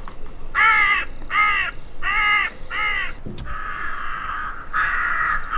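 Recorded crow calls played from a push-button bird sign's loudspeaker: four evenly spaced caws, then a longer, harsher, less pitched call in two stretches.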